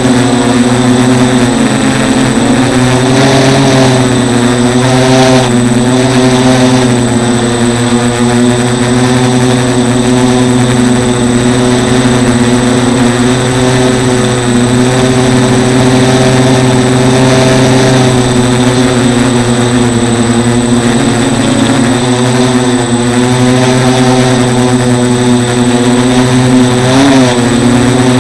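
Micro hexacopter's six Turnigy 1811 brushless outrunner motors and propellers running close to the onboard camera's microphone, a loud steady whirring whose pitch wavers up and down.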